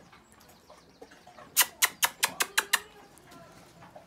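A quick run of seven sharp clicks, about six a second, starting about a second and a half in and lasting roughly a second.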